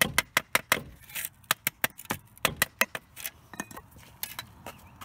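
Hammer tapping a brick down into wet mortar to set it level: quick sharp taps, about five a second at first, thinning out and getting softer after about three seconds.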